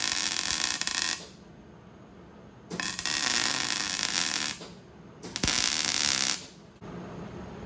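Electric arc welding with a small 110-volt welder, the arc crackling and sizzling in short runs as the corners of a joint are filled: one run stops about a second in, then two more short runs follow.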